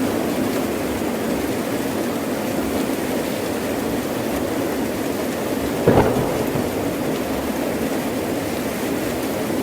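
Heavy rain falling steadily, with one short, sharp crack of thunder about six seconds in.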